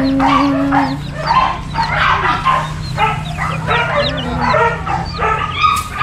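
Several dogs barking, yipping and whining at once, one call after another, over a steady low hum.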